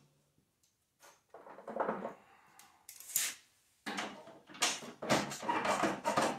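Ratchet wrench clicking in short runs as bolts on the braces to the tractor's steering tower are snugged up, with metallic clinks of tool on steel. It starts about a second in, with one sharp clink near the middle before a steady run of clicks in the second half.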